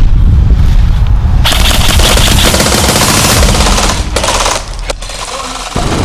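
Rapid automatic gunfire: a fast, dense run of shots for about four seconds, then a few single shots and a quieter stretch near the end.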